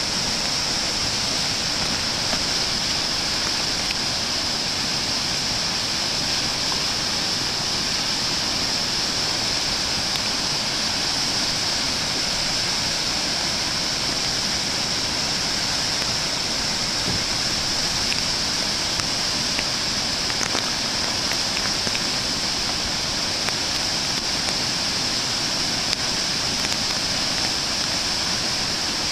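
Floodwater from a storm-swollen river pouring over a dam spillway into churning whitewater below: a steady, unbroken rush of water.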